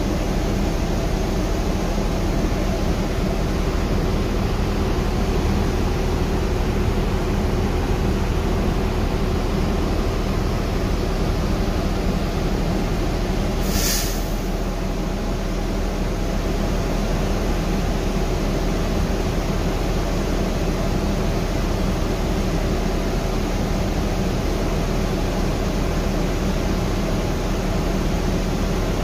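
Steady cabin drone inside a 35-foot Gillig trolley-replica hybrid bus: drivetrain and road noise with a low hum. A short hiss sounds about halfway through.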